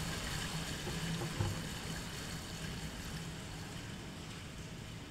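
Flush water draining down a cast iron drain-waste-vent stack, picked up by a microphone an inch from the pipe: a steady rushing that slowly fades.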